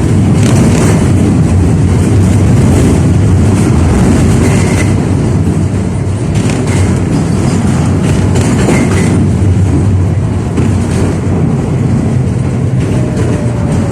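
71-605A (KTM-5A) tram running along the track, heard from on board: a loud, steady rumble of wheels on rail and running gear, with a click now and then as the wheels pass rail joints.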